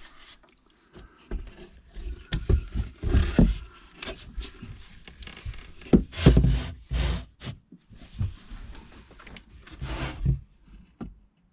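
Irregular knocks, thumps and scraping of wooden shelf parts being handled and fitted by hand, loudest about six seconds in.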